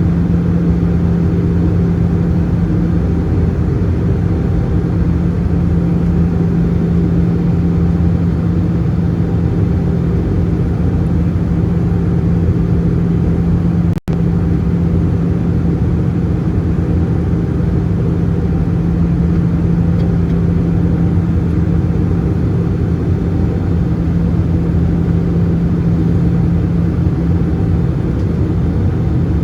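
Steady in-flight cabin noise of an Airbus A320-214, heard from a window seat: its CFM56-5B engines and the rushing air make a constant drone with a low hum. The sound cuts out for an instant about halfway through.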